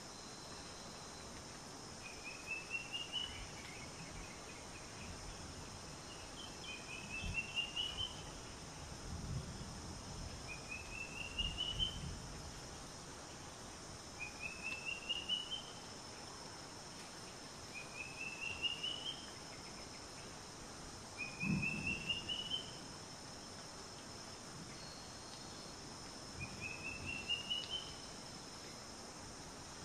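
A bird calling again and again, each call a quick run of short notes rising in pitch and lasting about a second, repeated about every four seconds, over a steady high insect drone. A few dull low thumps come in between.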